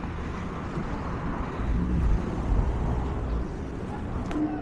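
Outdoor ambience made up mostly of a low rumble, heaviest around the middle.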